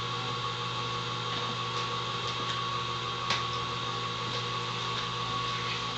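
Small electric screw-type oil press running with a steady motor hum while pressing acorns, with a few light clicks and one sharper click about three seconds in.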